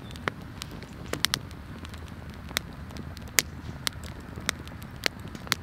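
Wood fire crackling, with about ten irregular sharp pops over a low steady rush; the fire is still burning up, not yet down to embers for cooking.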